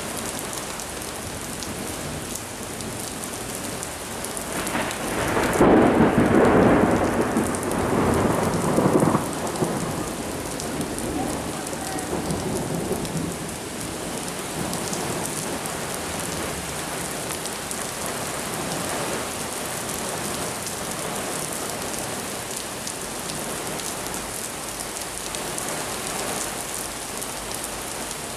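Heavy rain falling steadily. About five seconds in, a rumble of thunder swells up, peaks, and fades over several seconds.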